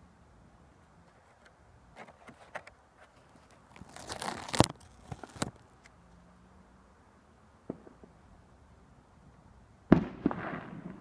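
Firecrackers going off. A few scattered cracks come first, then a dense run of crackling with one sharp bang, a single crack, and a loud bang near the end that trails off into crackling.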